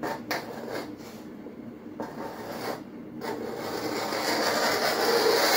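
Caliper tip dragged along the surface of a luxury vinyl tile plank to scratch a score line at the inlay width. Several short scraping strokes come first, then a longer, louder scrape in the second half.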